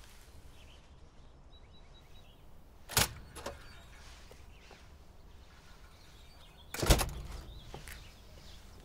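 A building's glass-panelled entrance door: a sharp clack about three seconds in as it is worked open, then a louder, heavier thud with a short low rumble near the end as it swings shut. A faint steady outdoor background noise runs underneath.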